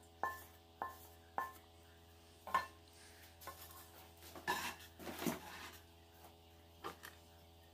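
Metal spoon clinking against a stainless steel mixing bowl: a handful of separate taps, each leaving a short metallic ring, with a rougher stretch of scraping about halfway through.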